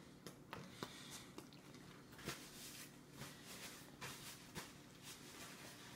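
Faint, irregular small taps, squishes and smacks from a baby eating at a plastic high-chair tray, her hands patting and pressing mashed food, with a couple of sharper clicks about two and four and a half seconds in.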